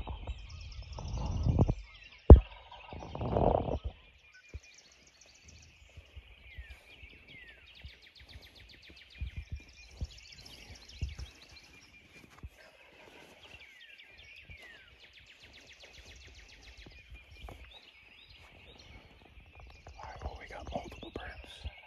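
Wild turkey gobbling twice within the first four seconds, loud and close, with a sharp click between the gobbles. Songbirds sing throughout, with short falling whistles and trills.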